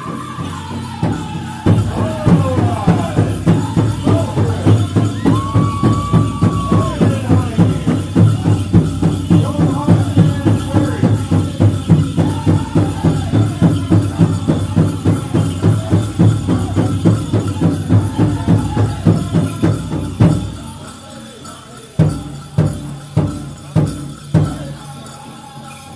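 Powwow drum group playing a chicken dance song: a big drum beaten fast and evenly, about three beats a second, with high voices singing over it. The drumming stops about 20 seconds in, and four separate beats follow near the end.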